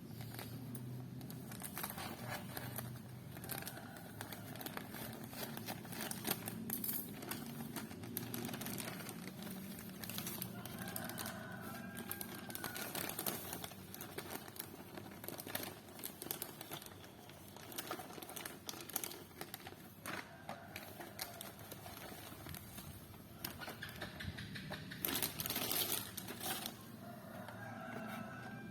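Parcel packaging being handled and opened by hand: crinkling, tearing and scattered clicks and rustles, with a denser, louder bout of crinkling near the end.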